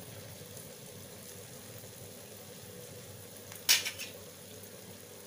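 A rice-and-jaggery batter fritter deep-frying in hot oil, with a steady low sizzle and bubbling. A brief sharp louder burst comes about three and a half seconds in.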